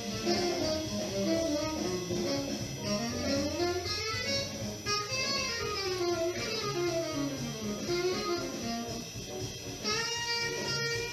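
Intro music: a guitar-led instrumental with a steady bass line and sliding melody lines, changing to long held chords about ten seconds in.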